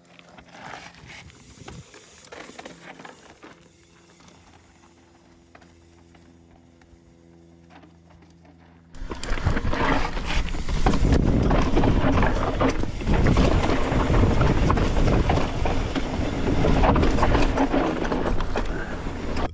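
Mountain bike riding down a rocky trail: after a quiet start, a loud rush of wind and rattling of tyres and frame over rock begins suddenly about halfway through.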